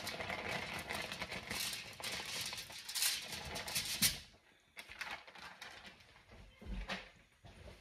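Plastic freezer bag crinkling and rustling as seasoned chicken drumsticks are shaken out of it onto a foil-lined baking sheet, stopping about four seconds in; a few soft knocks follow.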